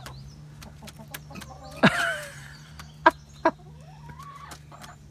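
Backyard hens clucking, with one loud squawk about two seconds in and a few sharp clicks, two of them loud about a second later.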